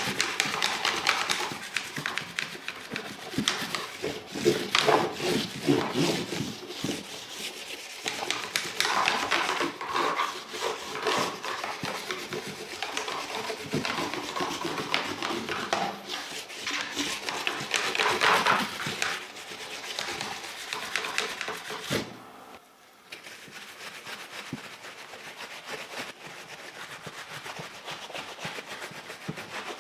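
Plastic keyboard parts being scrubbed and rubbed during cleaning, a continuous scraping rustle with many small clicks and taps, and a brief lull about two-thirds through.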